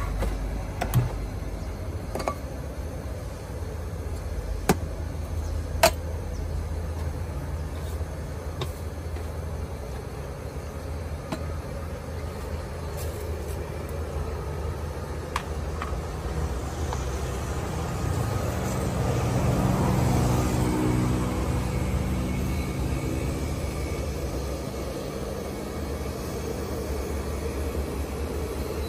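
Steady low rumble of road traffic, with one motor vehicle swelling past and fading in the second half. Several sharp clicks and knocks of metal cups and espresso tools being handled come in the first half.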